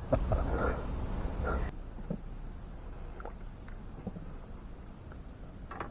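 A man laughing for about a second and a half, cut off sharply. Then a faint low rumble with a few light clicks.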